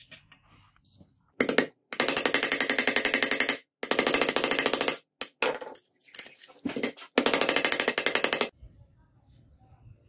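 Hammer tapping a small steel part on a steel anvil in very rapid strokes, coming in several runs of a second or more with short pauses between and stopping a while before the end.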